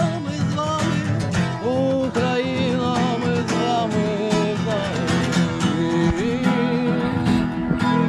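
A song sung in Ukrainian to guitar accompaniment, the voice holding long notes with vibrato.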